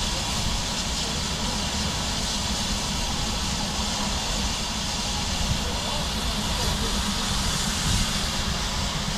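Steady hiss of steam from an LMS tank steam locomotive standing at rest, over a low rumble.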